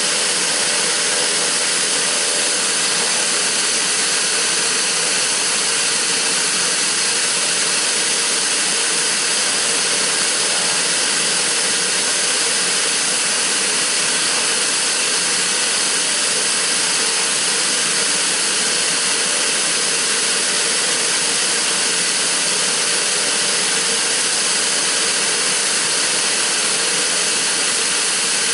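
Pilatus PC-12's Pratt & Whitney PT6A turboprop engine running steadily, a constant turbine hiss with a faint hum beneath it.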